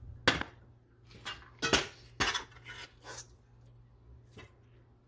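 Metal spatula and spoon clinking and scraping against stainless-steel pans as spiced masala is scooped from one pan into another. There are about half a dozen separate sharp clinks, the loudest just after the start and around two seconds in, over a low steady hum.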